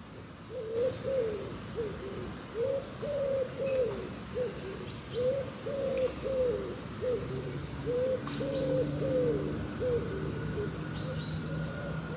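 A pigeon cooing in repeated phrases of several low notes, with a few short high chirps from small birds. A faint steady low hum comes in about halfway through.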